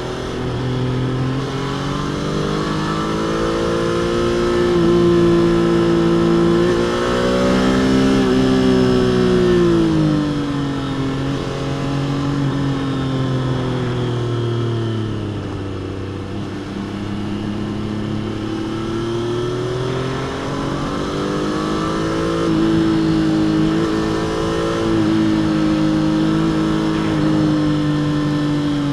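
Stock exhaust of a Triumph Trident 660's inline three-cylinder engine under way, its pitch rising and falling with the throttle: it climbs over the first third, drops to its lowest about halfway, then climbs again.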